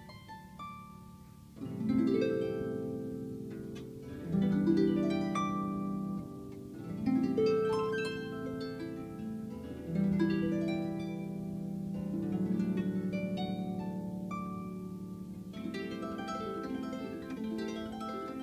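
Harp played slowly: plucked chords and single notes with ringing low notes, soft at first, then coming in louder about a second and a half in, with quicker runs of notes near the end.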